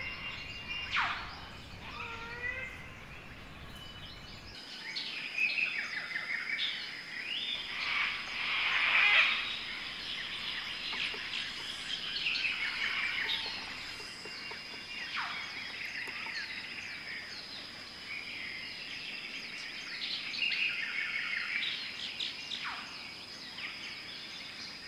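Chorus of forest birds at first light: many overlapping chirps and short whistled calls, some sweeping downward in pitch. A steady high thin tone joins about four and a half seconds in.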